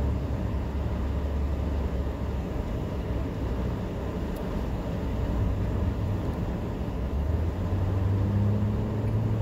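Car engine and road noise heard from inside the cabin while driving: a steady low drone with tyre hiss. Near the end the engine note rises a little.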